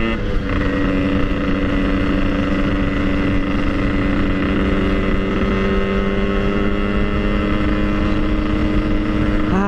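Yamaha RX-King single-cylinder two-stroke motorcycle engine running under way at steady revs, its note holding one pitch; the revs rise near the end.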